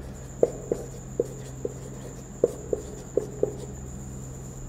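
Marker pen writing on a whiteboard: about eight short strokes, in two groups of four.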